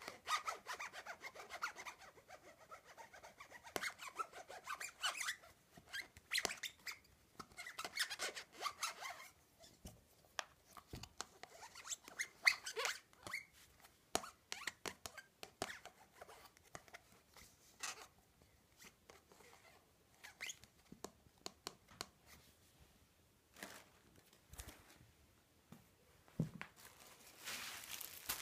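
Fingernails scratching and tapping on a party cup: stretches of scratching in the first nine seconds and again around twelve seconds, then scattered light taps and clicks. A rustling hiss builds near the end.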